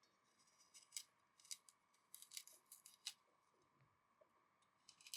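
Faint, sharp clicks and snips of kitchen food preparation, coming in irregular clusters of a few at a time.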